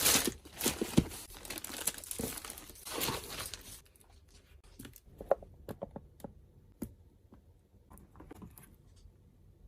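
Close-up crinkling and rustling of washi tape and plastic or paper packaging being handled, for about the first four seconds, then scattered light clicks and taps as the handling slows.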